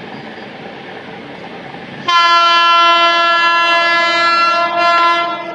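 Horn of an Indian Railways WAP-7 electric locomotive, one long steady blast of a little over three seconds starting about two seconds in, wavering briefly just before it stops. Under it runs the rumble of the approaching train running through the station.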